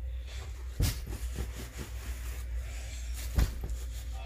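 Hands pressing and rubbing a shredded-memory-foam pillow through its fabric cover: soft rustling with two dull thumps, about a second in and again near the end, over a steady low rumble.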